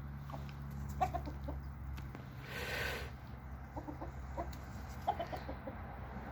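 Backyard chickens clucking in short bursts, with a cluster about a second in and another near five seconds. A brief rustle comes near the middle, over a steady low hum.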